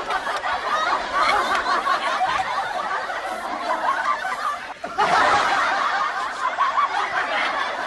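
People laughing and snickering without a break, dropping out briefly about five seconds in and then starting up again.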